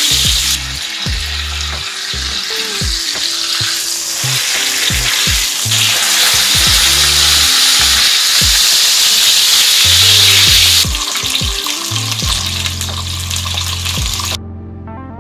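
Oil sizzling steadily as a whole tilapia pan-fries in a shallow pan. The sizzle thins about eleven seconds in and stops shortly before the end.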